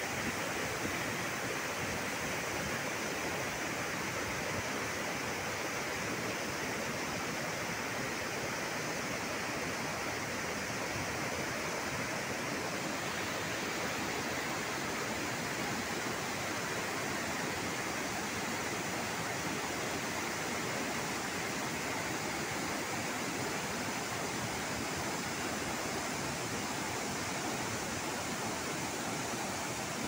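Water spilling over a low dam weir and running through a rocky river channel: a steady, unbroken rush of falling water.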